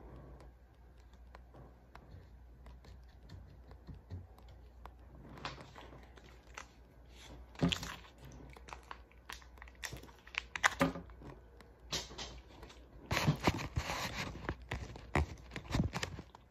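MRE plastic packaging being handled, crinkling and tearing with scattered clicks. Quiet for the first few seconds, with louder rustling in the last few seconds.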